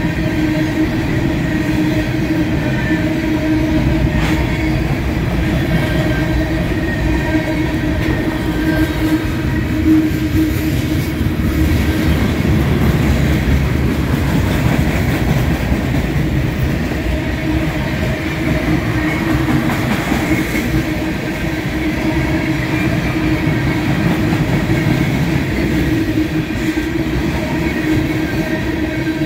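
Cars of a freight train rolling past close by: a steady rumble of steel wheels on rail with a held ringing tone running through it, and an occasional faint click.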